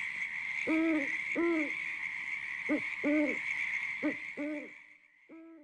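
Owl hooting as a spooky sound effect: seven short hoots, mostly in pairs, over a steady high hiss that fades out about five seconds in.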